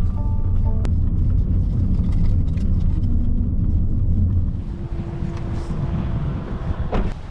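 Car on the road: a steady low rumble of engine and tyres, which drops away about four and a half seconds in.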